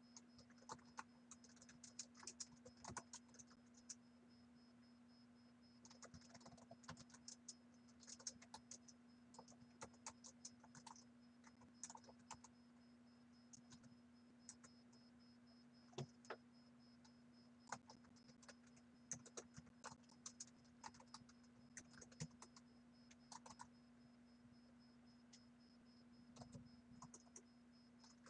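Faint typing on a computer keyboard: quick runs of key clicks with short pauses between them. A steady low hum runs underneath.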